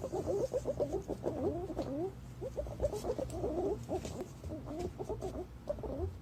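Green pigeons calling: a dense, continuous run of short, warbling whistled notes that bend up and down in pitch, the notes crowding and overlapping.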